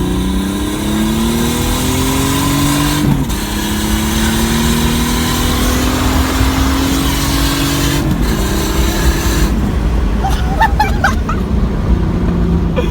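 Chevrolet Cavalier engine accelerating hard, its pitch climbing through the gears, with an upshift drop about three seconds in and another about eight seconds in. It then settles into a steadier run.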